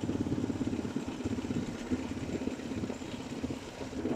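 Fishing boat's engine running steadily with the boat under way, a rapid even pulsing.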